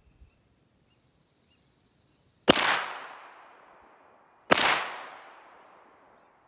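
Two pistol shots from a compensated STI 2011 DVC Open race gun, about two seconds apart, each trailing off over about a second and a half.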